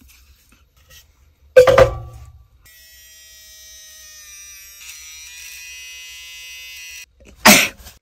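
Electric toothbrush buzzing for about four seconds, its tone shifting about halfway through. A loud thump comes before it, and a short loud burst of noise near the end.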